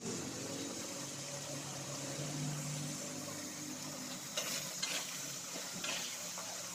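Jengkol slices sizzling steadily in hot oil in a wok, with a few short scrapes and clicks of a metal spatula against the pan between about four and six seconds in.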